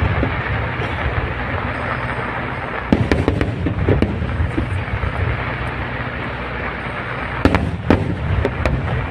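Aerial fireworks display: sharp shell bursts and crackling over a continuous rumbling din. Clusters of bangs come about three seconds in and again near the end.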